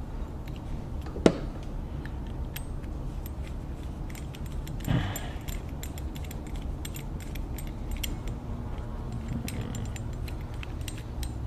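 Small metal clicks and ticks as a screwdriver turns the little adjusting screw in a Singer 15-91 foot pedal's contact block and the parts are handled, with one sharper click about a second in and a brief louder handling noise around five seconds in.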